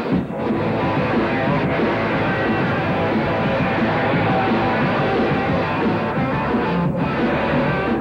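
Rock band playing live, with electric guitar.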